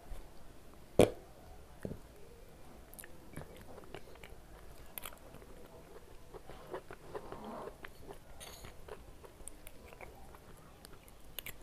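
A person chewing and biting food close to the microphone, with wet mouth clicks throughout and one sharp, loud click about a second in.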